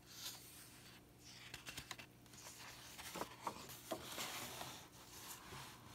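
Faint paper rustling and small taps as the pages of a hardback picture book are turned and a hand smooths the new page flat.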